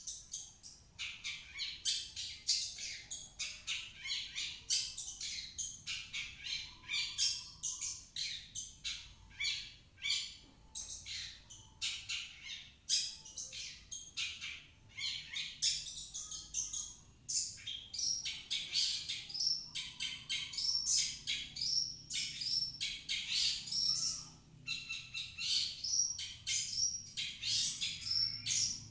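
Long-tailed shrike (cendet) singing a rapid, unbroken run of high chirps, trills and harsh notes. It is a lure song played to prompt another shrike to start singing.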